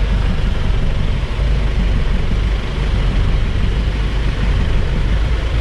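Safari jeep's engine running steadily, a low rumble with no pauses.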